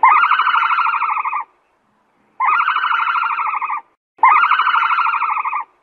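A trilling, rattling animal call played three times, each call about a second and a half long with a pause of about a second between.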